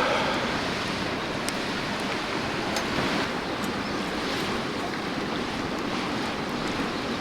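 Mountain river running steadily over rocks, with a few faint light ticks on top.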